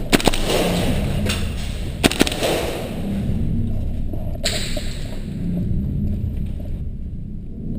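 Airsoft guns firing: two quick pairs of sharp cracks about two seconds apart, over a steady low rumble.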